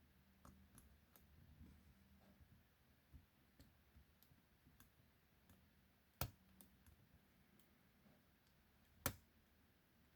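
Faint, scattered clicking of a lock pick and tension wrench working the pin-tumbler cylinder of a 40mm padlock, with two sharper clicks about six and nine seconds in. The pins are giving no clear feedback.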